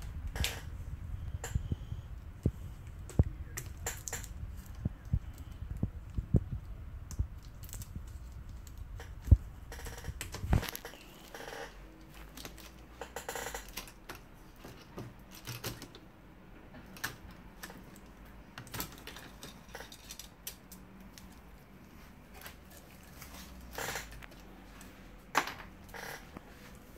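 Irregular clicks and taps of plastic and metal laptop parts being handled and worked on during disassembly of an HP ProBook 430 G2. A low rumble underneath stops abruptly about ten seconds in.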